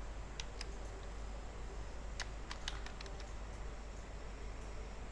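A few sharp computer keyboard and mouse clicks, with a quick cluster a little past the middle, over a steady low background hum.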